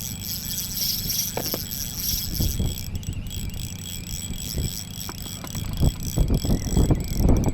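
Steady low hum of a fishing boat, with scattered clicks and light knocks that come more often near the end, as a spinning reel is wound in after a hairtail strike.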